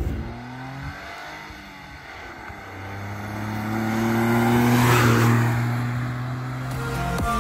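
A Toyota Aygo's small three-cylinder petrol engine and its tyres on a narrow road as the car drives past. The engine note and road noise build up and are loudest about five seconds in as it passes, then fade.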